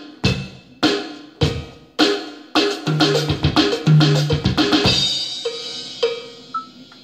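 Roland electronic drum kit played with sticks and bass drum pedal: a few evenly spaced beats, then a one-bar sixteenth-note fill grouped as two sevens (right, left, right, left, right, two bass drum strokes) plus two. The fill ends on a cymbal crash about five seconds in, followed by a couple of single hits.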